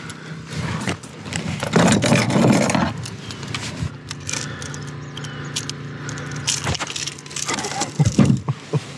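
A freshly landed northern pike thrashing and slapping against a plastic kayak deck while metal jangles and clicks as the jerkbait's hooks are worked free, with sharp knocks throughout and the loudest scuffle about two seconds in. A steady low hum runs underneath.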